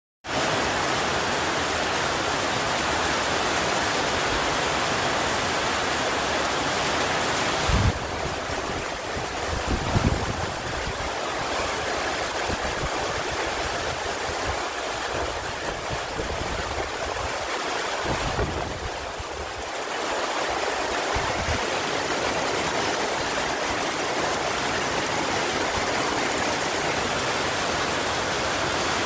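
Heavy rain falling in a steady, dense rush. A couple of short low thuds come about eight and ten seconds in.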